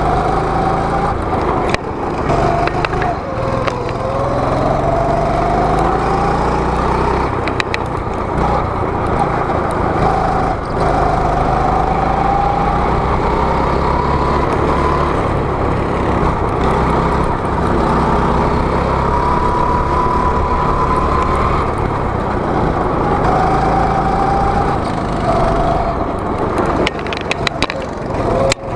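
A go-kart's small engine running hard as the kart laps the track, its pitch climbing and dropping again several times as the driver accelerates and lifts off.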